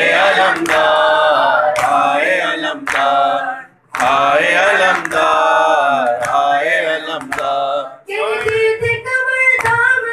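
Young male voices chanting a Shia noha lament in unison, in long sung lines with short breaks between them. Sharp slaps about once a second keep the beat: hands striking the chest in matam.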